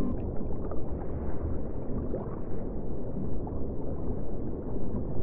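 Water sloshing and lapping: a continuous low rushing that swells and ebbs, with a few small splashes.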